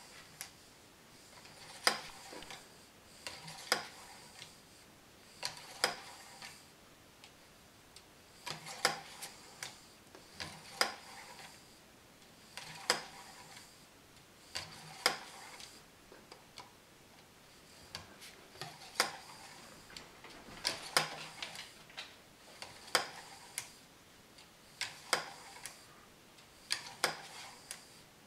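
Cleaning rod and brush worked back and forth through the barrel of a Hatsan AT-P1 PCP air pistol: small clusters of sharp metallic clicks about every two seconds, with faint scrubbing between them.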